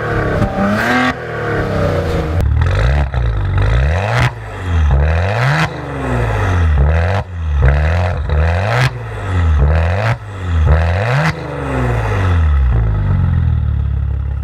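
Alfa Romeo Giulia Quadrifoglio's twin-turbo V6 revving over and over, its pitch dropping and climbing again about once a second, then holding at a steady pitch near the end.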